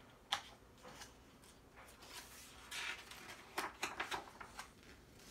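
Faint paper rustling and light taps as a hardcover picture book is handled and a page is turned, with a longer rustle about two to three seconds in and a run of small clicks near four seconds.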